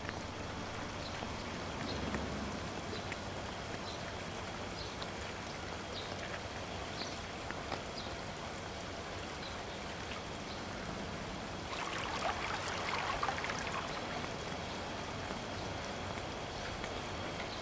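Water running in a narrow stone-lined canal, a steady trickling and rushing, with scattered faint ticks. The water grows louder and more sparkling for about two seconds roughly twelve seconds in.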